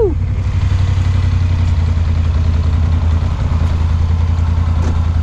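Polaris Sportsman 850 Highlifter ATV's twin-cylinder engine running steadily at low revs, a constant low drone that neither rises nor falls.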